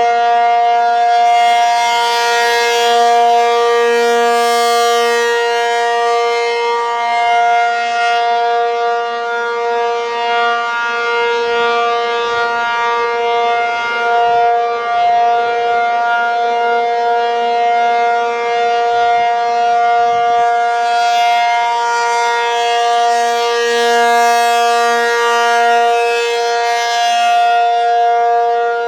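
ACA P-50 outdoor tornado siren sounding its steady alert signal: one unbroken, constant-pitch wail. It grows brighter and fades back slowly, with swells about two seconds in and again after about twenty seconds.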